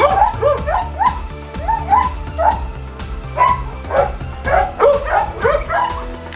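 A dog barking in a rapid run of short, high yips, two or three a second, over background music.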